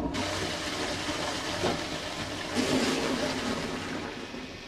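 A rushing, hissing noise that starts suddenly, swells again about two and a half seconds in and dies away near the end.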